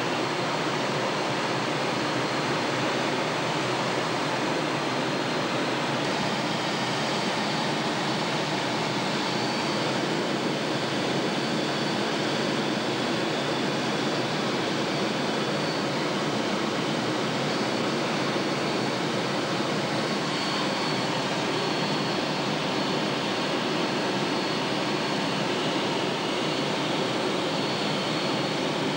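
Steady roar of jet engine and airflow inside the cockpit of a two-seat Skyhawk jet in cruise, with a faint high whine that comes and goes.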